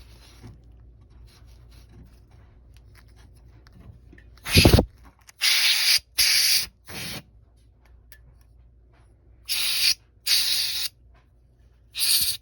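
Short hissing spray bursts, about seven of them, several in quick pairs, aimed at a laser cutter's fan and parts during cleaning. The first and loudest has a low rumble under the hiss.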